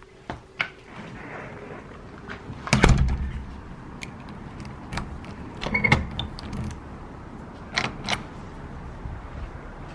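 A door's deadbolt thumb turn and knob latch being worked by hand: a series of metallic clicks and clunks, the loudest about three seconds in, with more around six and eight seconds.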